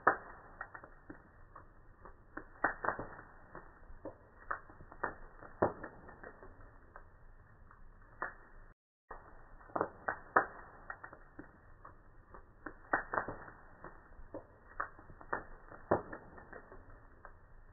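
Fire burning in a fireplace, crackling with irregular sharp pops of varying loudness over a faint hiss. The sound cuts out briefly about nine seconds in.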